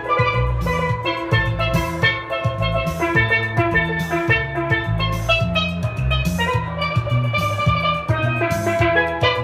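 Steelpan struck with rubber-tipped sticks, playing a quick melody of short ringing notes over an electric bass line, with a steady beat.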